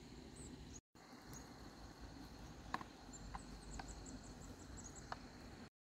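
Faint open-air ambience: a steady high insect tone with scattered short, high chirps and a few light clicks. The sound cuts out completely twice, about a second in and near the end, at edit joins.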